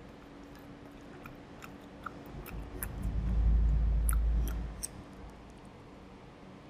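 Close chewing of a soft steamed dumpling, with small wet mouth clicks and smacks. A low muffled rumble swells in the middle for about two seconds.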